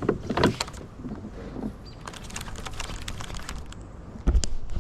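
Knocks and clicks of fishing gear being handled against a kayak's hull, with a run of small rapid ticks in the middle and a couple of heavier thumps near the end.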